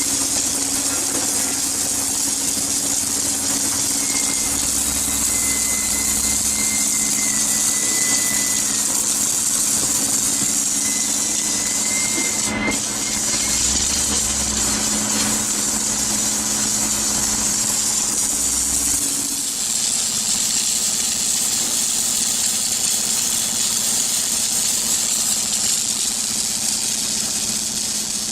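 Machinery running steadily: a continuous hum over a high hiss, with one of the hum's tones stopping about twenty seconds in.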